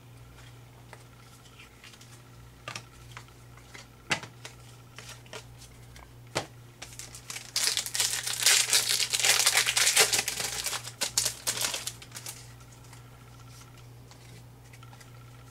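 Foil trading-card pack being torn open and crinkled: a dense crackling for about five seconds in the middle, after a few sharp clicks.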